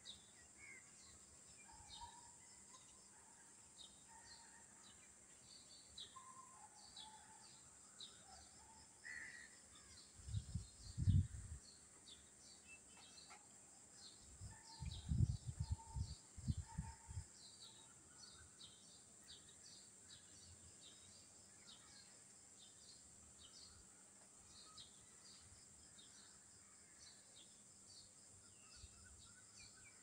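Outdoor birdsong: a steady run of short high chirps with a few lower calls. It is broken twice near the middle by a couple of seconds of low rumbling on the microphone.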